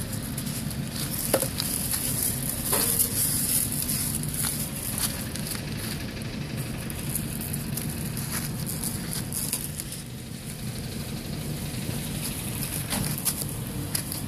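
Steady crackling hiss with scattered faint clicks.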